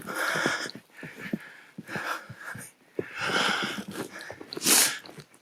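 A person trudging through deep snow: repeated swishing, crunching steps and breaths, about one every second and a half, with a louder hiss near the end.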